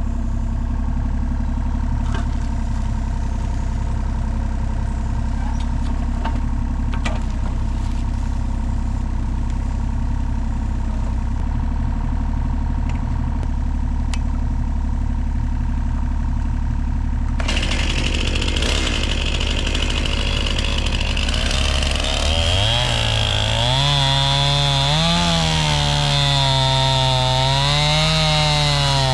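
An engine idles steadily. About seventeen seconds in, a chainsaw starts cutting, its pitch rising and falling over and over as it revs and slows in the wood.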